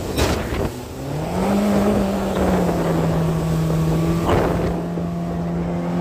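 Mercury outboard jet motor on a jon boat running hard through rapids; its pitch dips and then climbs back about a second in before holding steady. Wind and rushing water along the hull, with two short loud swooshes near the start and about four seconds in.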